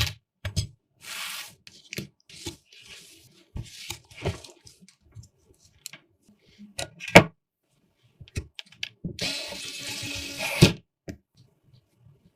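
Computer parts being handled during assembly: scattered clicks and knocks, with two stretches of rustling hiss, one about a second in and a longer one near the end.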